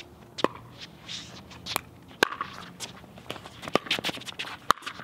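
Pickleball rally: about five sharp pops from paddles striking the hard plastic ball and the ball bouncing on the court, with shoes scuffing and stepping on the hard court surface between them.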